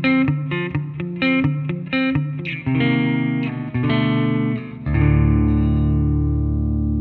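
Jackson JS32 electric guitar played on a clean amp tone through its neck humbucker. Quick picked notes come about three a second, then the notes ring longer, and about five seconds in a full low chord is struck and left ringing.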